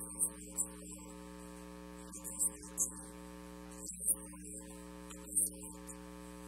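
Steady electrical mains hum, a low buzz that holds the same pitch throughout, with a few faint brief sounds scattered through it.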